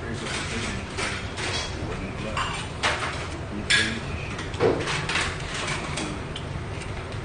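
Tableware clatter while eating: metal chopsticks clinking against plates and bowls in several separate sharp clicks, over a steady hum of restaurant background noise.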